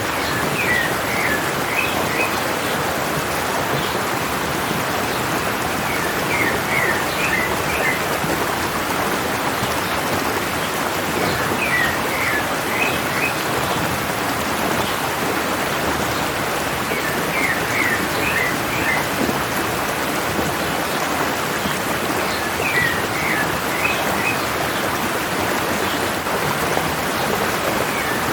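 A stream's water running and splashing steadily, with a bird singing a short phrase of several quick notes about every five to six seconds.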